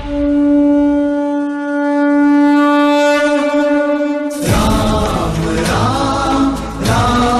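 A conch shell (shankh) blown in one long steady note for about four and a half seconds. Then a devotional song with chanting voices and music starts.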